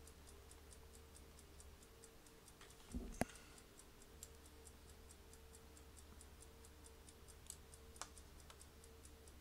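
Near silence over a low steady hum, with faint regular ticking about three times a second. One louder knock-like click comes about three seconds in, and a fainter single click near the end.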